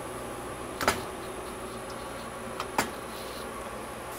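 Manual toggle clamps on a steel welding jig snapping shut twice, about two seconds apart, each a sharp metallic clack. A steady low shop hum runs underneath.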